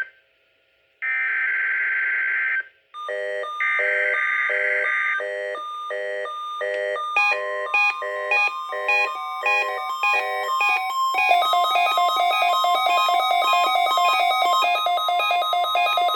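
NOAA Weather Radio Required Weekly Test: two buzzy bursts of the SAME digital alert header, with a weather-alert receiver's pulsing electronic beeps starting about three seconds in. About seven seconds in, the steady 1050 Hz warning alarm tone joins the beeping, which turns faster and denser about eleven seconds in.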